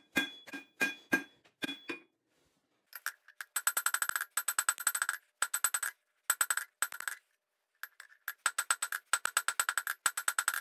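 Hammer blows on hot steel over an anvil, each strike ringing. For about two seconds the blows come evenly at about four a second; then, after a short pause, come quick runs of rapid blows with a higher ring, broken by brief stops.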